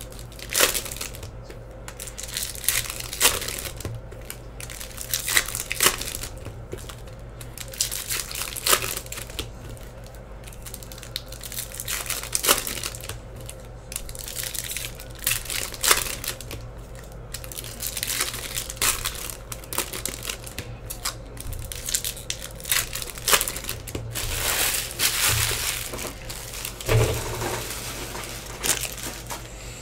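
Foil trading-card pack wrappers being torn open and crinkled by hand, in irregular rustling bursts.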